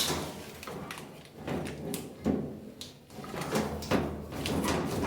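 Irregular plastic clicks, snaps and handling noise as a cable tie is broken and a wiring connector is worked loose under the top panel of an Electrolux LAC11 washing machine.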